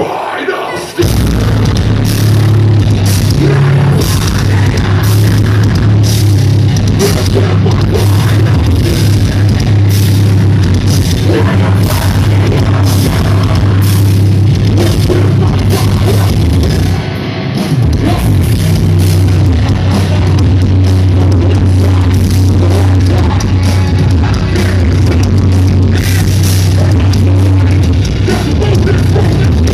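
Metalcore band playing live at full volume, with heavy drums, distorted guitars and a strong low bass. The band kicks in about a second in and briefly drops out a little past halfway.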